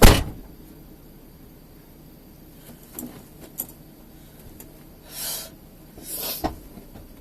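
A loud thump at the start, then a few light clicks and two short rustling swishes near the end.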